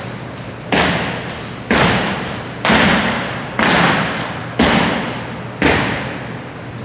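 Six sharp thuds about a second apart, each echoing and dying away slowly in a large gymnasium, over a steady low hum.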